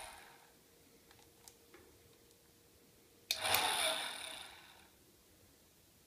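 Wall-mounted hotel hairdryer run in short bursts: the end of one run dying away, a few light clicks, then the dryer switched on again about three seconds in with a sudden rush of air and a high whine, dying away within about a second and a half.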